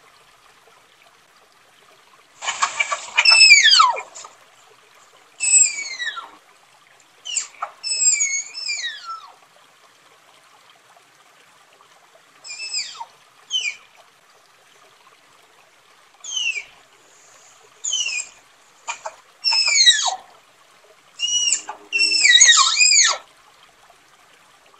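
Tapir giving a series of high-pitched whistling squeals, each sliding down in pitch, some short chirps and some drawn out for about a second. They come in irregular groups with short pauses, none in the first two seconds or the middle two.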